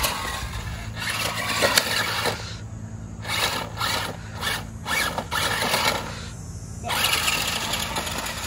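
Monster Jam Megalodon Storm RC truck's electric drive motors and gearbox whirring as it drives and spins on grass. The whirring cuts out briefly twice, as the throttle is let off, then picks up again.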